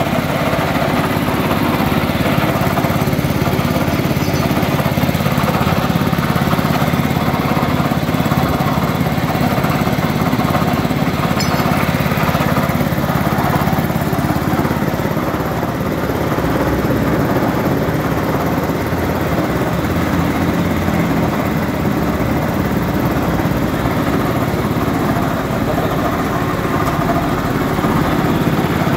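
Small petrol engine running steadily, belt-driving a dry coffee hulling machine and its blower fan.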